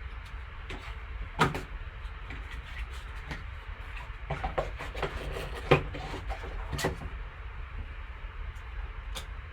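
A sealed card package being handled and opened: a scattered run of sharp plastic crinkles and clicks, loudest about a second and a half in and again near six seconds, over a steady low hum.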